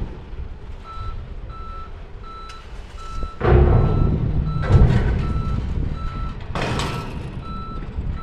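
Electronic warning beeper sounding steadily, a little under two beeps a second, at the chain ferry's vehicle ramp. Two loud rumbling clanks break in, the first about three and a half seconds in and the second about seven seconds in.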